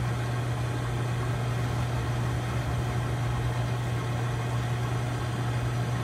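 Hot tub circulation pump motor running with a steady low hum and no change.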